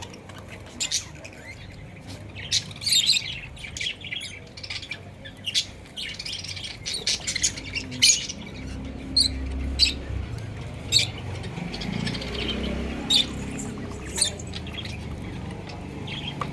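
Small birds chirping and squawking in many short, sharp calls, irregular and overlapping, over a low background rumble.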